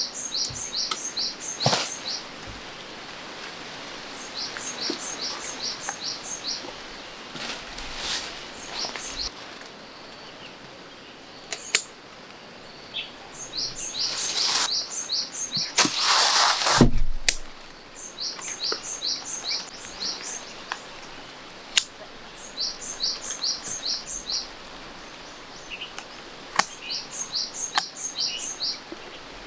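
A bird singing a short series of six to eight quick, high notes, the series repeated every few seconds over a steady outdoor background. Scattered sharp clicks, and one loud noisy burst lasting about a second midway through.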